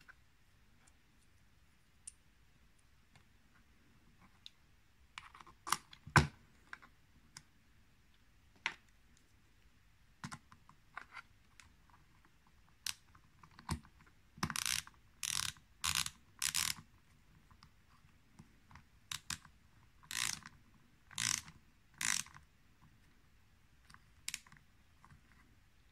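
Socket ratchet wrench tightening a nut on the front panel of a lathe's motor controller box: short bursts of ratchet clicking, four in quick succession about halfway through and three more a few seconds later. Earlier there are a few clicks and one sharp knock, the loudest sound.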